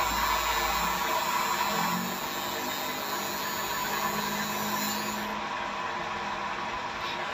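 Tattoo machine running steadily as it works ink into a practice skin, under a hiss that stops about five seconds in.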